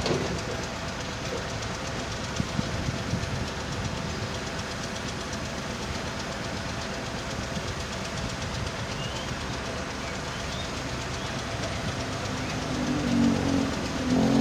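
Heavy machinery at work on stone and sand: a screening machine running with a steady rattle and clatter while an excavator works alongside. There are a few sharp knocks about two and a half seconds in, and an engine grows louder near the end.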